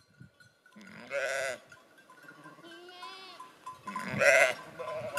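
Sheep bleating twice: a quavering bleat about a second in and a louder one about four seconds in.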